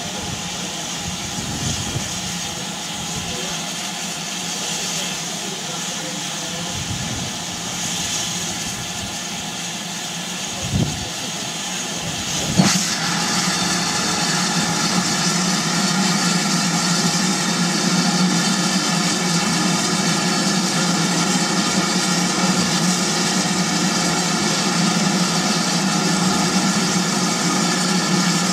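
A steam locomotive standing at rest, simmering with a steady hiss of escaping steam. There are two short knocks, about 11 and 13 seconds in, after which the hiss grows a little louder and fuller.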